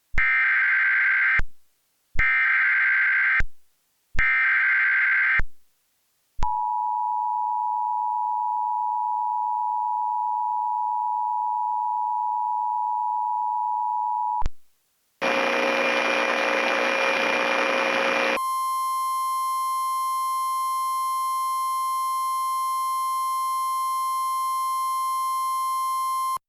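Emergency Alert System tones: three short bursts of SAME header data, then the two-tone attention signal held for about eight seconds. After a brief gap comes a harsh buzzing stretch of about three seconds, then a single steady tone for about eight seconds, which cuts off suddenly.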